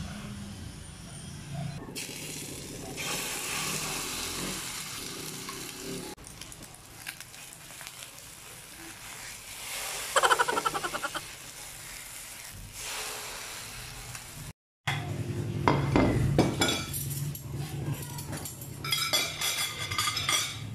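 Corned beef and egg patties sizzling in hot oil in a frying pan, with a spatula scraping and turning them. Near the end, metal forks and spoons clink against ceramic plates.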